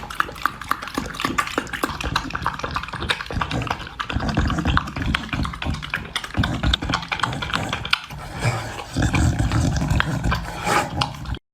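A pet animal making a run of rough, rhythmic noises that cut off suddenly near the end.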